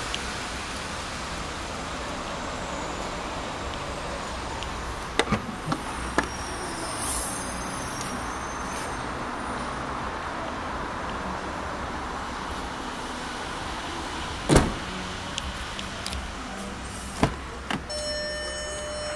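Steady background hiss with a few sharp clicks and one loud thump about three-quarters of the way through: the tailgate and doors of an Audi A3 Sportback hatchback being opened and shut, latches clicking.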